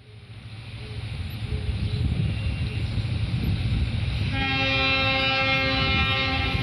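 Indian Railways passenger train running with a steady low rumble that fades in. About four seconds in, the locomotive horn sounds one long held blast.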